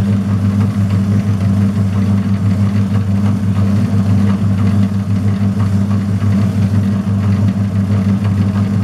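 Metal lathe running at steady speed with an even motor hum, while a strip is held against the spinning steel shaft to polish it.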